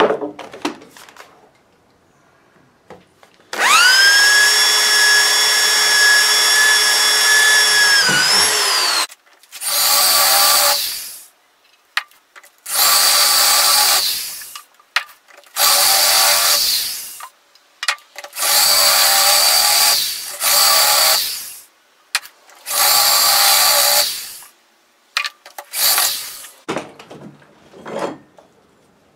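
Corded electric drill boring into square steel tubing clamped in a vise. It runs once for about five seconds with a steady whine, then in a series of shorter bursts of one to two seconds each. A few short knocks come near the end.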